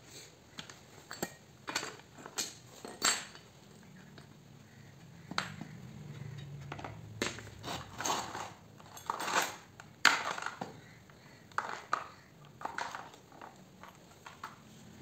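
Irregular clicks, knocks and light metallic clinks of hands and small tools working on a chainsaw's plastic top cover and spark plug boot. The loudest knocks come about three seconds and ten seconds in.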